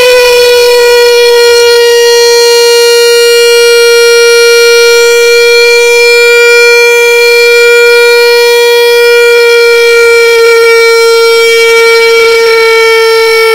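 Peppa Pig's crying, slowed down drastically so that it stretches into one long, steady wail on a single held pitch, much like a siren.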